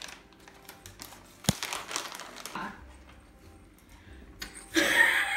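Crinkling, rustling handling noise close to the microphone with scattered small clicks and one sharp tap about a second and a half in. Near the end a loud, high-pitched voice breaks in.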